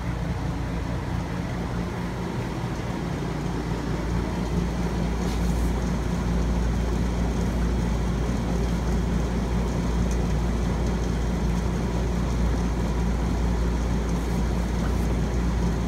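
Electric stone grinder running steadily: a motor hum under the rumble of two stone rollers turning in the steel drum and crushing almonds, in the early stage of grinding them down into almond butter.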